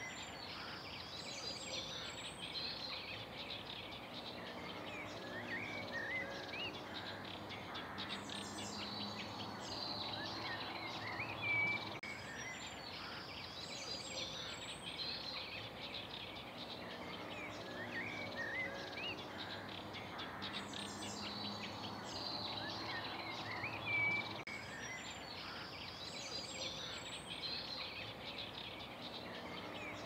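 Several small songbirds singing over a steady outdoor background: chattering phrases and short whistled, gliding notes that keep coming back, with a few brief louder calls.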